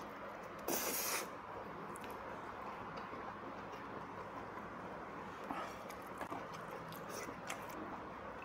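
A person slurping up a mouthful of black-bean-sauce noodles in one short, loud slurp about a second in, then chewing quietly, with a few small clicks.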